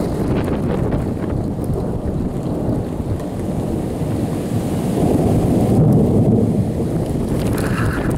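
Thunder rumbling in a snowstorm over strong wind, the rumble swelling about five seconds in and easing off about two seconds later.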